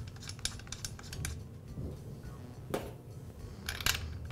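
Light metallic clicks and taps of a spark plug being threaded by hand into a small two-stroke trimmer engine's cylinder head and a spark plug socket wrench being fitted over it. A few faint clicks, with sharper ones about three seconds in and a pair near the end.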